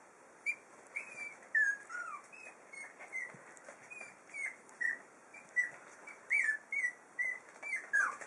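Five-week-old puppies whining and squeaking: a rapid string of short, high, squeaky whines, many sliding down in pitch, about two to three a second.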